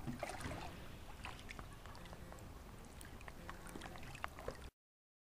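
Swimming-pool water lapping and gurgling just after a dive, with many small splashes and drips and a sharper splash at the very start. It cuts off suddenly near the end.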